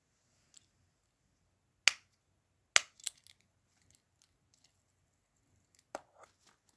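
A few sharp clicks and taps of small objects being handled, the two loudest a little under a second apart about two seconds in, a quick pair just after, and another cluster near the end, with faint ticks between.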